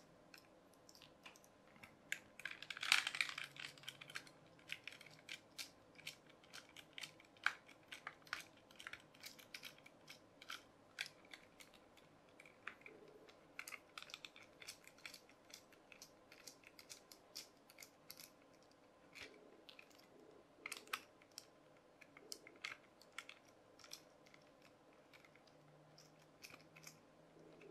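Small precision screwdriver turning screws out of a New Ray toy racing car's plastic chassis: faint, irregular clicks and scratches of the bit and handled plastic, with a brief louder handling noise about three seconds in.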